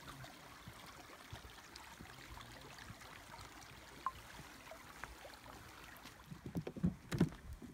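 Small forest stream running with an even, low watery rush. Near the end, louder irregular knocks and rustles close to the microphone.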